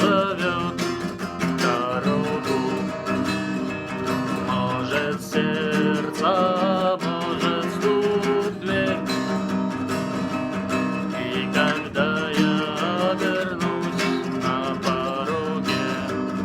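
Instrumental break of the song: acoustic guitar strumming chords, with a wavering lead melody line over it.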